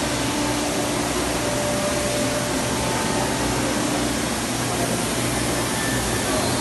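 Steady factory-floor machinery noise: a constant loud hiss with a low hum and a few faint steady tones under it.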